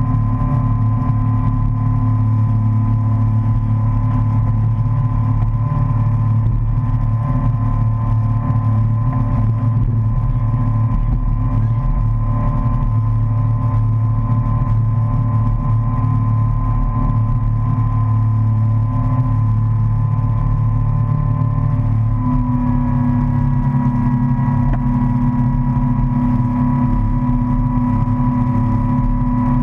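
Motorboat engine running steadily at towing speed, with a slight shift in its pitch about two-thirds of the way through.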